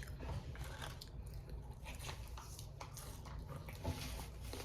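Close-up mouth sounds of a person biting and chewing fast food: a string of small, wet, crackly clicks, over a faint steady low hum.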